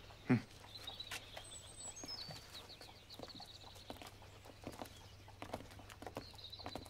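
Faint street ambience: horse hooves clip-clopping on cobbles at irregular intervals, with a bird singing and a falling whistle about two seconds in.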